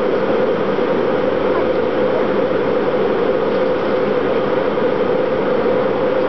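Steady in-flight cabin noise inside a Boeing jet airliner: the even rush of the jet engines and airflow around the fuselage, with a strong low hum and no changes in level.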